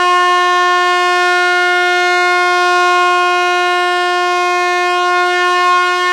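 Truck horn sounding one long, steady blast at a single unchanging pitch.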